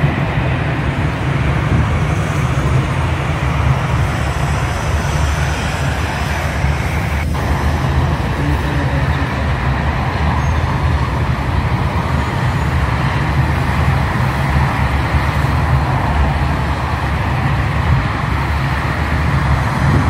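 Steady road traffic noise from a highway, with a heavy low rumble and no single vehicle standing out.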